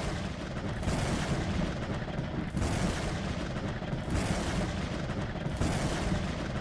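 Fireworks sound effect: dense crackling over a low rumble, swelling about every one and a half seconds.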